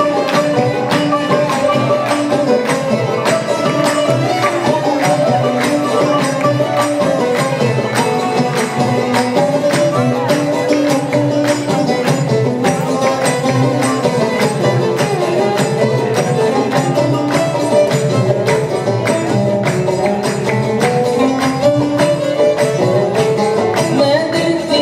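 Instrumental interlude of a North African Arabic-song ensemble: oud, violin and banjo playing the melody over a steady beat on darbuka and tambourine.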